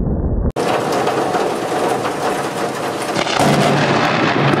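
A muffled low rumble of thunder breaks off abruptly, then heavy rain hisses steadily. About three seconds in, a deeper, louder rumble of thunder builds under the rain.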